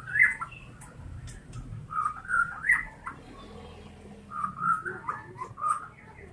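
White-rumped shama singing short phrases of whistled notes in three bursts: at the start, around two to three seconds in, and again near the end.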